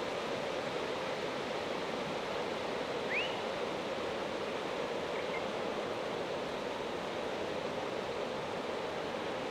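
Mountain river flowing with a steady, even rushing. About three seconds in, a bird gives one short rising chirp, and a faint short note follows about two seconds later.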